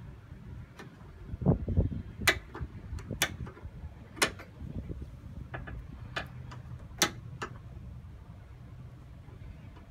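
Pliers clicking and tapping against the tie rod end and steering knuckle while a tie rod end dust boot is being changed: a handful of sharp, irregular metal clicks, with a few dull knocks about a second and a half in.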